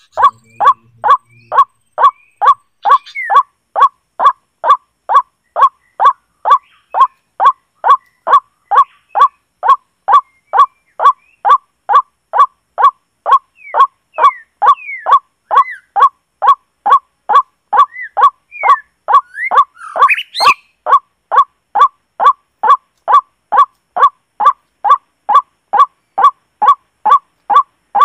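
A single short bird call repeated at a steady, unchanging pace of a little over two calls a second, each call identical. Fainter, higher chirps from other birds come and go, with a brief rustling burst about two-thirds of the way through.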